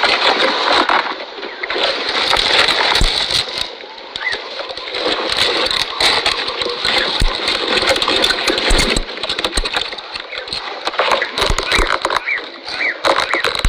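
Camel chewing cactus, with wet crunching and smacking strokes over a steady hiss.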